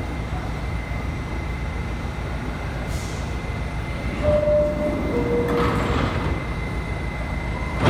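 A New York City subway train standing at a station with a steady low rumble. About four seconds in, the two-note falling door-closing chime sounds, followed by the noise of the sliding doors shutting.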